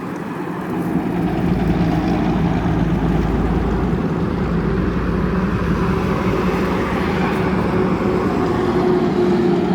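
Train rolling past: a steady engine drone with a deep rumble that swells about a second in and holds.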